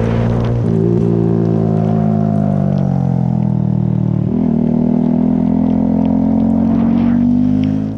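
Motorcycle engine running under way, its pitch sagging slowly and then rising again a little past halfway, over a steady hiss of tyres on wet road.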